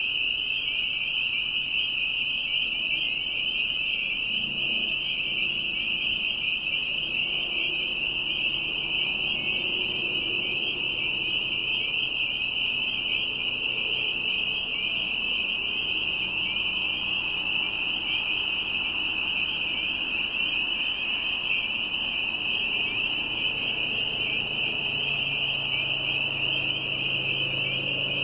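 A dense chorus of spring peepers: many short, high, rising peeps overlapping into one continuous shrill ringing. A faint low hum lies underneath and swells near the end.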